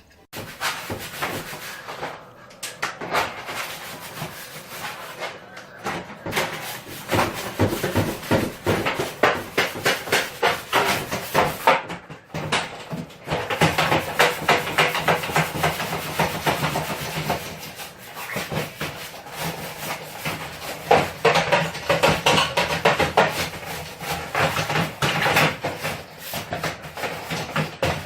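Rapid, uneven rubbing and scraping strokes by hand, continuous and loud, with scattered knocks.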